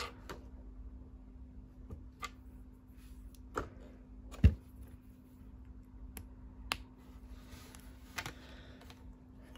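Scattered light clicks and taps of small plastic LEGO pieces being handled, with one louder knock about four and a half seconds in.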